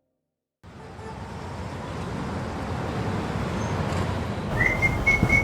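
After a brief dead silence, steady traffic and street background noise fades in and grows louder. Near the end, whistling begins on top of it.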